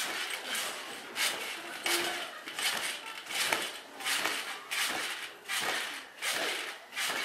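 A round spring trampoline bounced on steadily, about one bounce every three-quarters of a second. Each landing gives a rustling whoosh from the straw scattered on the mat and a metallic clinking from the springs.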